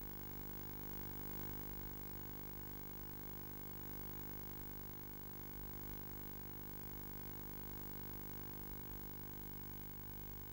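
Steady faint hum and hiss with no distinct sound events and no rise in level.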